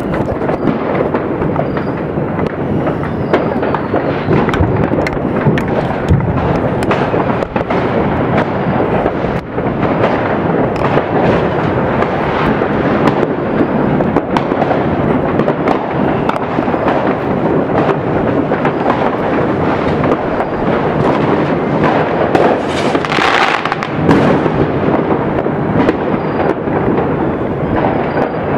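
Dense, continuous crackling and booming of many fireworks and firecrackers going off across the city, with sharp bangs scattered throughout and a louder hissing rush about 23 seconds in.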